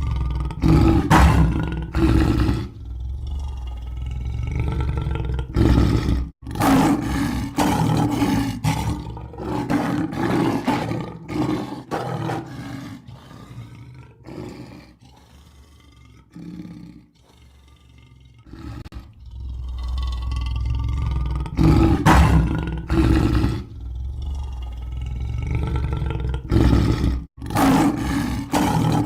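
Lion roaring in repeated bouts of deep calls, with runs of short grunts. It goes quieter for a few seconds in the middle, then roars loudly again.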